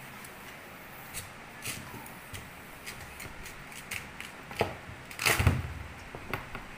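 Kitchen knife cutting and scraping through the rough, root-covered skin of a fresh elephant foot yam, an irregular run of crisp clicks and scrapes, with a heavier knock a little over five seconds in.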